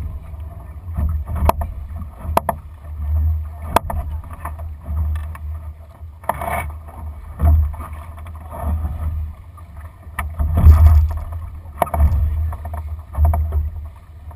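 A Lightning sailing dinghy under way in light wind: gusty wind buffeting the deck-mounted microphone and water splashing along the hull, with a few sharp knocks and clicks from the boat's fittings.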